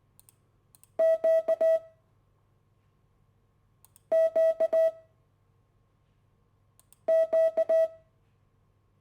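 Morse code letter Q (dah-dah-di-dah) sent three times as a steady, high-pitched beep tone, each four-element group lasting under a second, about three seconds apart.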